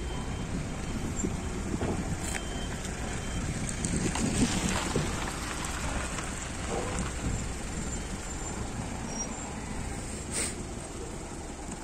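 Outdoor background noise: a steady low rumble under an even hiss, with a sharp click about two seconds in and another near the end.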